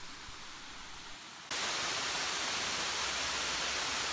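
Steady rushing hiss of falling water from a waterfall in heavy rain. It is faint at first and turns suddenly louder about a second and a half in, then holds steady.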